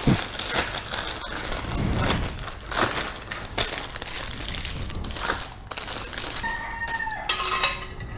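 Irregular knocks, clinks and scrapes of hand tools working on a Suzuki Raider 150's exhaust pipe, with a short high call in two parts near the end.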